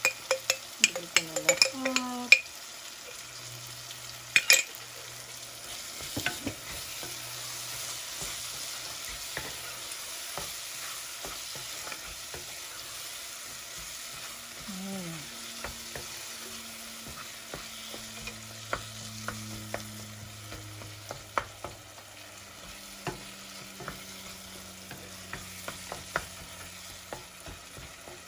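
Onions, tomatoes and shrimp paste sizzling as they sauté in a pot, with a wooden spoon stirring through them and clicking against the pot now and then.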